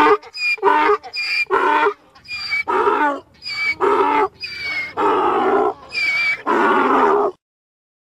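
Donkey braying: a long run of rapid hee-haw calls, the last few drawn out longer, cutting off about seven seconds in.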